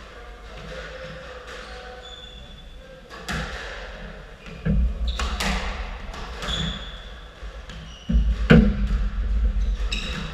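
Squash rally: sharp cracks of the ball off the racket and walls, starting about three seconds in, with thumping footsteps and short squeaks of court shoes on the wooden floor; the hardest hit comes about eight and a half seconds in.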